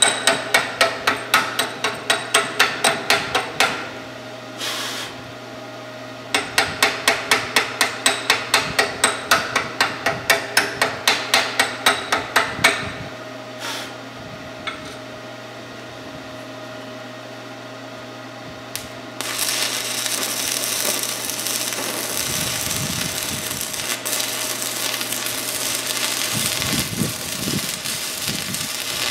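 Rapid, even metal-on-metal hammer strikes, about four a second, in two runs with a pause between, then a quieter spell with a steady hum. About two-thirds of the way in, a Forney Easy Weld 110 stick welder's arc starts crackling and hisses steadily to the end.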